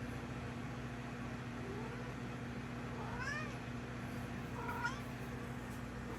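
Black cat making sweet little sounds: short, soft meows, a faint one about two seconds in, a rising one about three seconds in and a brief one near five seconds, over a steady hum.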